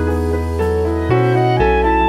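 Live ensemble music: an electric bass guitar holds low notes that change about once a second, under sustained keyboard chords and a stepping woodwind melody.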